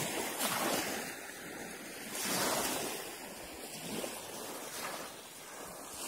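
Small sea waves washing up and breaking on a shelly sand beach, swelling and ebbing every second or two; the loudest wash comes about two seconds in.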